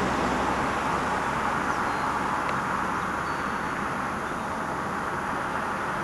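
Steady rushing noise of Yosemite Falls' water, heard from a distance at high spring flow.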